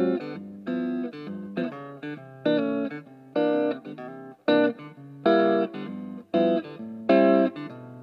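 Tokai ES-60 semi-hollow electric guitar being played: chords struck sharply about once a second, each held briefly and then cut short, with quieter notes in between.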